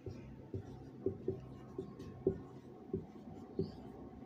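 Marker pen writing on a whiteboard: about eight soft, irregularly spaced taps and strokes as the tip meets the board, each a short dull knock.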